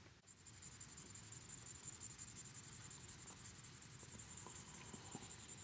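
Faint scratching of a plastic stylus on a Blackboard by Boogie Board LCD writing tablet, in rapid, even back-and-forth strokes of about nine a second, like shading something in.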